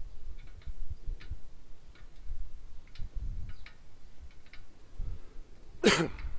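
Bicycle freewheel ticking as the bike coasts, over a low rumble of wind and road noise on the microphone. Near the end, a short, loud rasping noise.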